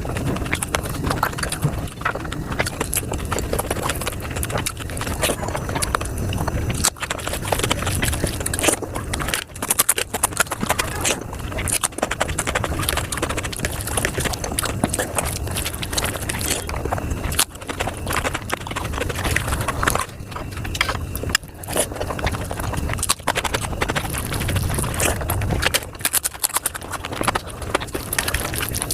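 Close-miked mukbang eating sounds sped up to five times normal speed: chewing, smacking and mouth clicks of someone eating paneer butter masala, run together into a dense, rapid stream of clicks.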